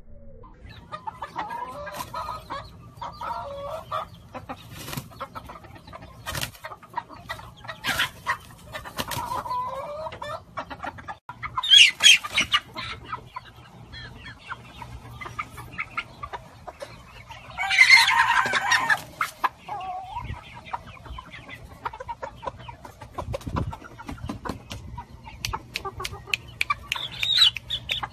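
Chickens clucking, with two loud squawking outbursts in the middle and a busier stretch of calls near the end. Short sharp clicks are scattered throughout.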